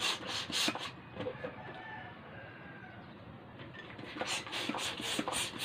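Hand balloon pump pushing air into a small latex balloon in short hissing strokes: a few in the first second, then a run of about six near the end.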